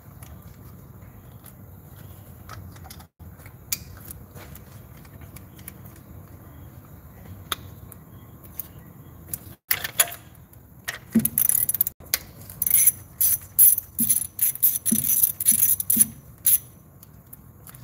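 A socket ratchet and other metal tools clicking and clinking on the engine while a spark plug is worked in its well. There are only a few faint clicks for the first ten seconds, then a busy, irregular run of sharp metallic clicks lasting about six seconds.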